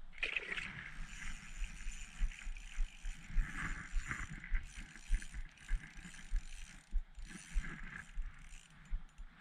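Small spinning reel on an ice-fishing rod being cranked, a continuous mechanical whirring with many short low thumps mixed in.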